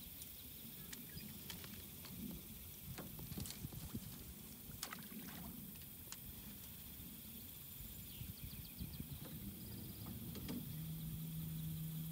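Small fishing boat on calm water: scattered light knocks and clicks from rod handling and the hull over a low rumble of water and wind. A steady low motor hum starts about a second before the end and becomes the loudest sound.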